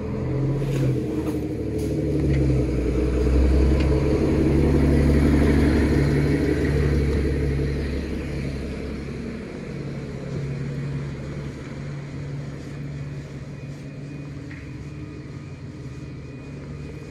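A road vehicle's engine, a loud low rumble that builds over the first few seconds and then fades away, leaving a quieter steady engine hum.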